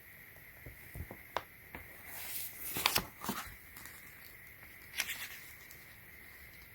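Packaging being handled and unwrapped: a few light clicks, then a louder crinkling, tearing rustle, and another short rustle near the end.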